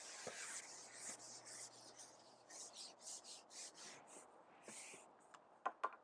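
Soft, irregular rustling and rubbing in short scratchy bursts, with a few sharp clicks near the end.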